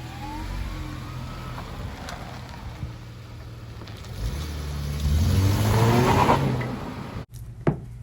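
A vehicle engine running steadily, growing louder about five seconds in, then cut off abruptly near the end.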